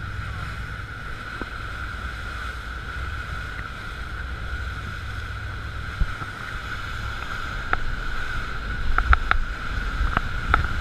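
Rigid inflatable speedboat running at speed: a steady engine drone with wind buffeting the microphone and water rushing along the hull. A few sharp slaps of spray hit near the end.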